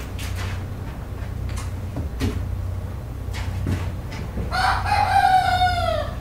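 A rooster crowing once near the end: one long call of about a second and a half that falls in pitch as it ends. Before it come short scattered chicken clucks over a steady low hum.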